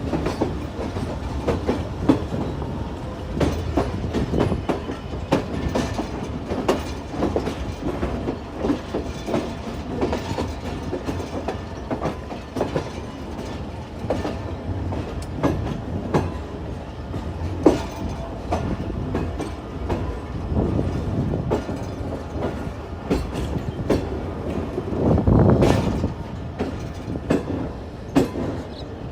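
Train wheels rolling over jointed yard track and points, with a steady rumble and irregular clickety-clack of wheels striking rail joints. The rumble swells louder near the end.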